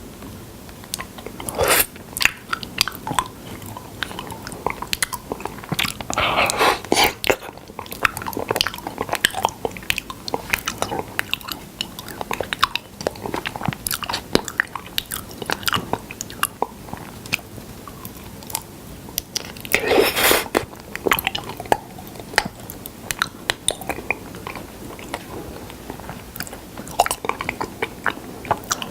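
A person chewing honey with irregular sticky, wet mouth clicks and smacks. There are louder bouts of chewing about six seconds in and again about twenty seconds in.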